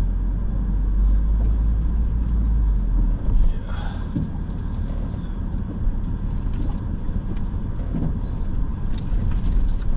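Lifted 2019 Honda Passport crawling over a rocky dirt trail in first gear, heard from inside the cab: a steady low rumble of engine and tyres, with a few knocks as rocks pass under the wheels. The deepest part of the rumble eases about three seconds in.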